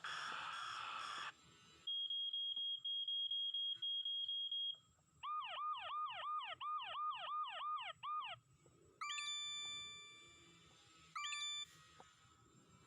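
Anti-theft alarm tones from a smartphone app played one after another through the phone's speaker, each cut off abruptly: a rapid high beeping, then a fast yelping siren of about three falling sweeps a second, then two short electronic tones.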